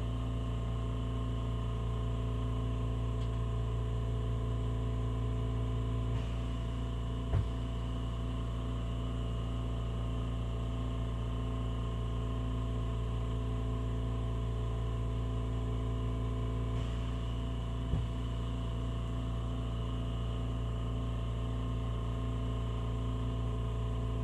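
Oxy-propane torch burning steadily, heard as a continuous low hum with a faint hiss while its flame is held against a test sample. Two small sharp taps come about 7 and 18 seconds in.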